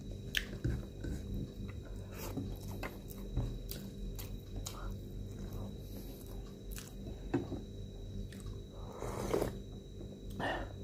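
Close mouth sounds of eating: chewing and small crunchy bites of crispy fried dried fish (daing) with rice, with wet clicks of lips and fingers. About nine seconds in, a louder slurp from a soup bowl.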